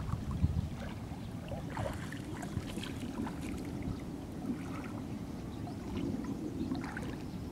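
Knee-deep floodwater sloshing and lapping around wading legs, with scattered small splashes and drips, over a steady low rumble.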